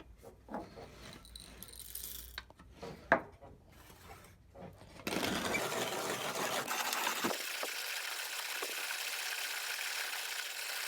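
1950s Bernhard & Co manual conical burr coffee grinder. A few light clicks and rattles, one of them sharp about three seconds in, then from about five seconds in the handle is cranked and coffee beans are ground in a steady, even crunching whir, with the burrs set to their finest, just touching.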